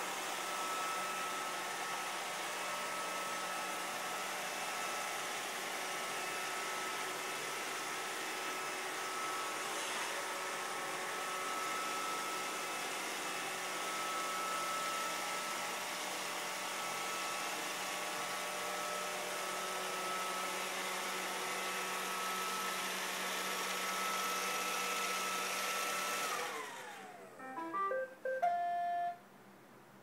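Roomba robot vacuum running, its motor and brushes making a steady whir with a whine as it drives to its charging dock. About 27 seconds in the motor winds down with a falling whine, then a short run of electronic beeps plays as it docks, and it goes quiet.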